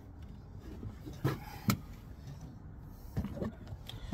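Two sharp knocks a little under half a second apart, then a few softer knocks and rustles near the end as the phone camera is picked up and handled.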